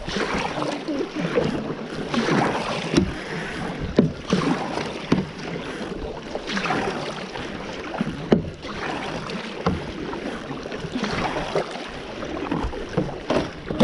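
Double-bladed paddle strokes splashing in the water beside a plastic sit-on-top kayak, about one stroke every two seconds, with a few sharp knocks in between.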